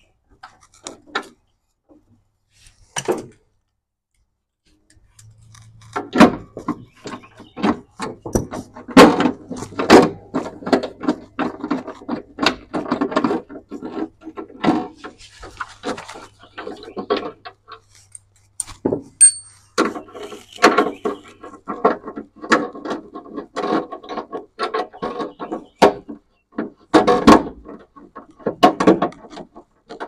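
Close handling noise: hands and tools knocking, rubbing and clicking against the camera and the tractor's plastic steering column cover while bolts are fitted. After a few scattered clicks it becomes a dense, irregular clatter from about six seconds in.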